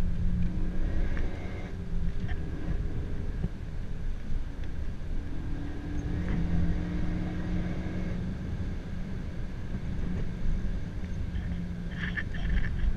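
Renault Mégane RS 275's turbocharged 2.0-litre four-cylinder heard from inside the cabin on track, its note holding, dropping away and picking up again over steady road and tyre rumble. A few sharp rattling knocks come near the end.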